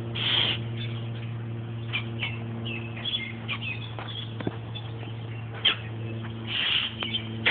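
Pet bird making scattered short chirps and squawks, with two longer harsh calls, one near the start and one near the end. A steady low electrical hum runs underneath.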